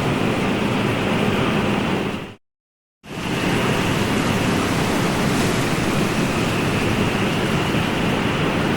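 Ocean surf: a steady, even wash of breaking waves. A little over two seconds in it fades out to silence for under a second, then fades back in, the mark of an edit or loop join.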